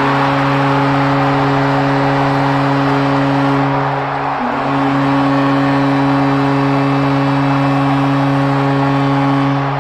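Arena goal horn for a Columbus Blue Jackets home goal, sounding in two long blasts with a short break about four and a half seconds in, over a cheering crowd.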